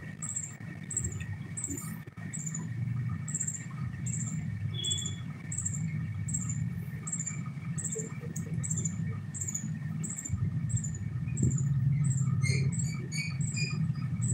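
A short high-pitched chirp repeating evenly, about twice a second, over a steady low hum; near the end further, lower chirps join in.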